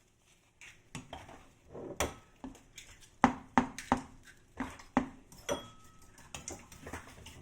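Spatula knocking and scraping against a frying pan while scrambling eggs: an irregular string of clinks and knocks, about two a second, starting about a second in.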